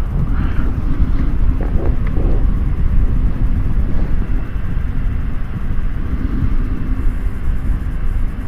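Steady low rumble of wind from an electric fan at full speed buffeting a helmet intercom microphone fitted with foam and dead-cat windscreens, visor closed. Some wind noise still comes through the windscreens.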